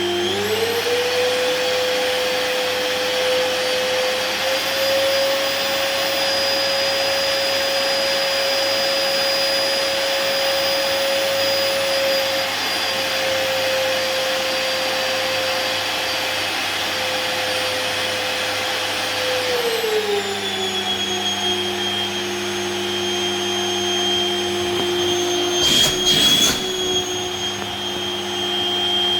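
LG 1600 W canister vacuum cleaner running steadily. Its motor whine rises in pitch about a second in and falls back about 20 seconds in, as the load on the suction changes. A few knocks come near the end.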